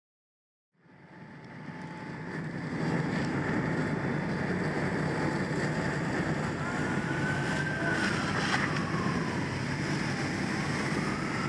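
Loud steady engine-like rumble, with a faint whine that rises and falls near the middle. It fades in over the first couple of seconds and cuts off abruptly at the end.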